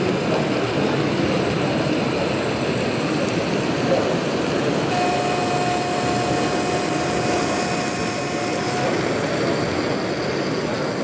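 HO-scale model diesel locomotive hauling log wagons, a steady running noise that eases slightly as it moves out of view. A steady high tone is held for about four seconds midway.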